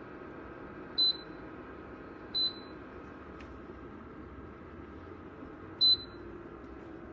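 Compact BREEZOME dehumidifier's electronic beeper sounding three short, high beeps: about a second in, about two and a half seconds in, and near six seconds in. A steady low hum runs underneath.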